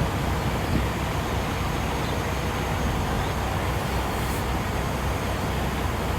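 Steady low vehicle engine rumble with a noisy hiss over it, even throughout with no distinct knocks or changes.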